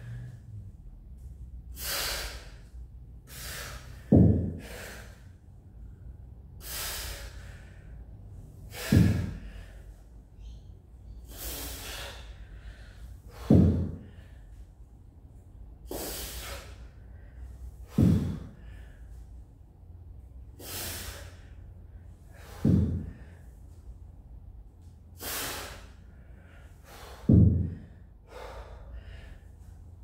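Heavy, rhythmic breathing of a man working through a kettlebell swing-and-snatch set: a sharp breath about every two seconds, every other one a loud, deeper exhale that drops in pitch.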